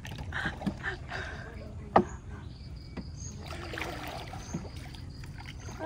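Small wooden sampan being paddled across a canal: irregular paddle dips and water splashes, with a single sharp knock about two seconds in. Insects sound steadily in the background.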